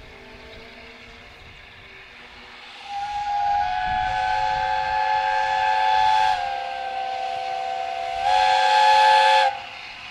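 Steam locomotive whistle sounding one long blast of several tones at once, dipping slightly in pitch midway, then swelling louder for a final second before cutting off abruptly.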